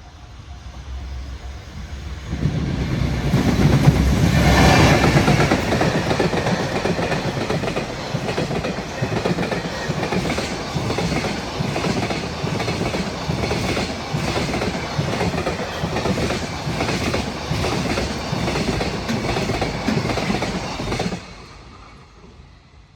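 Container freight train hauled by a JR Freight EF210 electric locomotive passing at speed. The locomotive's approach swells to the loudest point about four to five seconds in, then the wagons run by with a steady clickety-clack of wheels over rail joints, which stops abruptly near the end as the last wagon clears.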